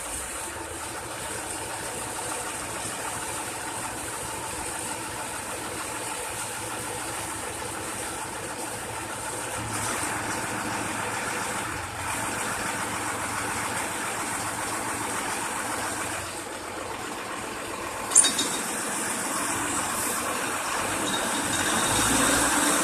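Crane's engine running steadily while it holds and lowers a yacht mast on its hook, growing somewhat louder near the end. A single sharp knock comes about eighteen seconds in.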